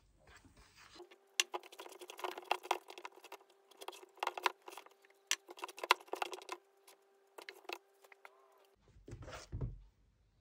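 Wire whisk beating pancake batter in a stainless steel bowl: rapid clicking and scraping of the wires against the metal, with the bowl ringing a steady tone underneath. The whisking thins out a little past the middle and stops, and a short low bump follows near the end.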